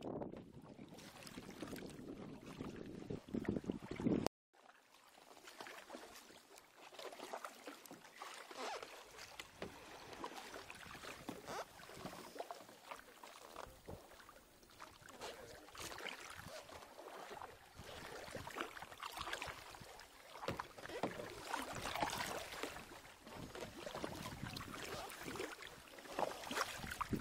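Kayak paddles dipping and splashing in river water, irregular strokes over a steady wash of moving water. The sound cuts out completely for a moment about four seconds in.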